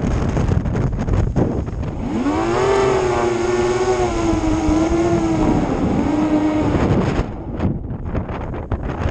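Strong wind buffeting the microphone, with a racing drone's electric motors whining over it from about two seconds in until about seven seconds. Their pitch swoops up and dips as the throttle changes.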